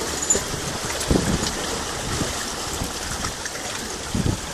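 Shallow seawater washing and sloshing over rocks around wading divers, a steady rush with a couple of low knocks about a second in and near the end.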